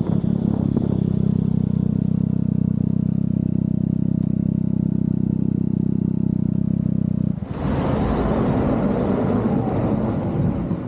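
Triumph Daytona 660's three-cylinder engine running at a steady engine speed. About seven seconds in, its even note gives way abruptly to a rough rushing noise.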